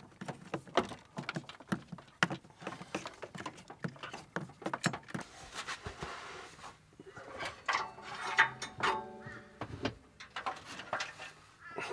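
Hand-handling sounds of an electrical cable being pulled and fed through: rapid rustles and clicks. A short pitched sound comes around eight seconds in.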